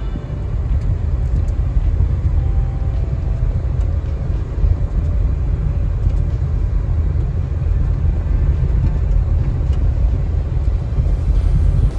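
Subaru Crosstrek driving on a dirt road, heard from inside the cabin: a steady low rumble of tyres and engine, with a few faint ticks.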